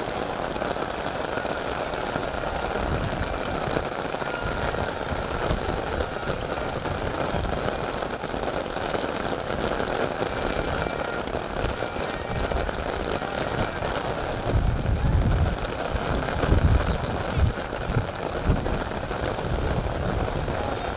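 Steady babble of a football crowd, many voices blending together. Gusts of wind buffet the microphone from about two-thirds of the way through.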